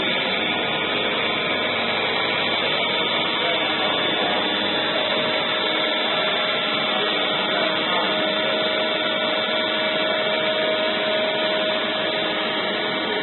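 AOKE DCZ70 CNC flatbed cutter running as it cuts KT foam board: a steady blower-like hum, typical of a vacuum hold-down table, with several steady high whines from the machine. A mid-pitched whine joins about five seconds in and stops about six seconds later.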